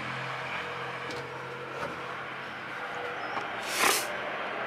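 Steady city street traffic noise, with a brief loud hiss near the end.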